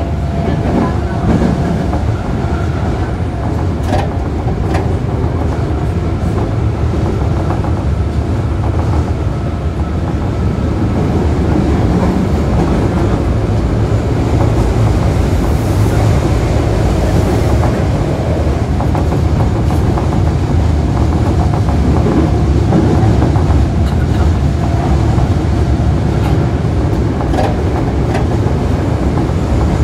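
Toei Asakusa Line 5300 series subway car running, heard from inside the car directly above its VVVF inverter: steady motor and wheel-on-rail noise with some clickety-clack from the rail joints, growing louder about a third of the way through.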